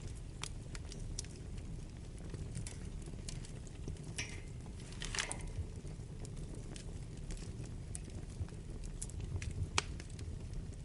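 Wood fire burning in a fireplace: a steady low rumble of the flames with scattered crackles and pops from the burning logs, a brief flurry of crackling around the middle and one sharp pop near the end.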